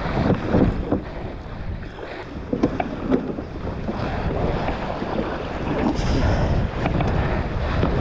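Wind buffeting the microphone over small waves lapping at a pebbly sand shoreline, with scattered short knocks and clicks.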